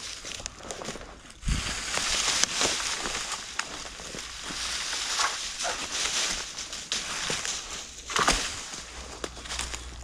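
Dry branches and dead brush crackling and rustling as a cut branch is dragged through a pile of brush, with many small snaps. It starts about a second and a half in.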